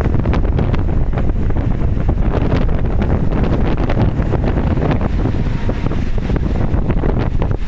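Wind buffeting the microphone, a steady loud low rumble, with scattered small clicks through it.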